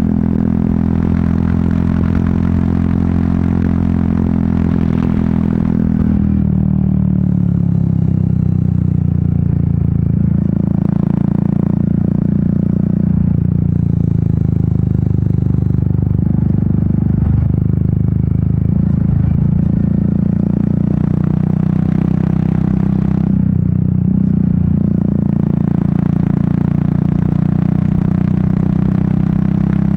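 Royal Enfield Meteor 350's single-cylinder engine and exhaust running on the road, heard from on the bike with wind noise. The engine note drops about six seconds in as the bike slows, then holds at a lower pace with small rises and falls; the wind hiss is strongest early on and again briefly later.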